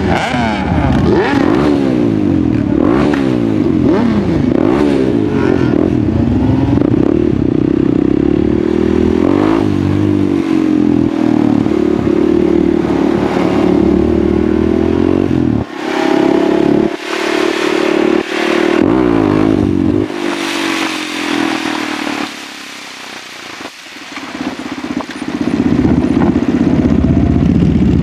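Husqvarna SMR 630 supermoto's single-cylinder four-stroke engine, heard from on board, rising and falling in pitch as it pulls through the gears at low speed. It chops on and off with the throttle a few times past the middle, drops quieter briefly near the end, then picks up again.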